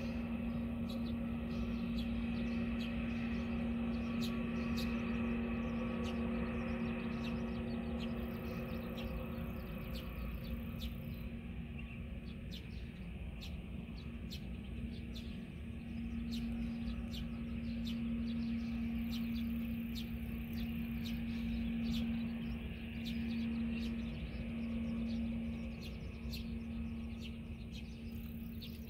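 Distant jet airliner taxiing: a steady low engine hum over a constant rumble, fading for a few seconds midway and then coming back. Short high chirps repeat through it, about once or twice a second.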